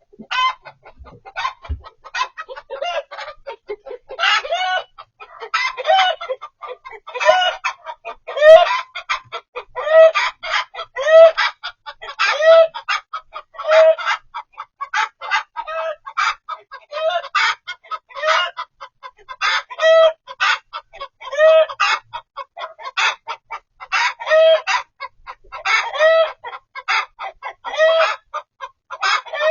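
Chicken clucking over and over, a louder call about every one and a half seconds with quicker clucks between.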